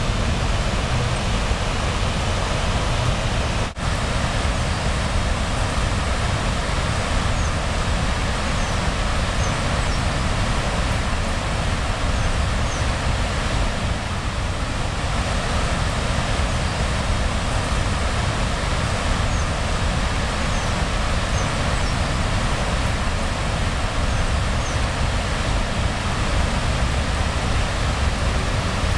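Snowmelt-swollen Cannon River rushing through rapids: a loud, steady wash of whitewater, with a brief dip about four seconds in.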